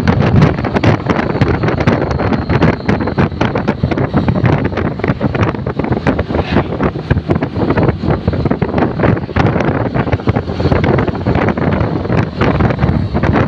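Wind buffeting the microphone on a moving motorcycle: a loud, constant rush with fast, gusty crackling.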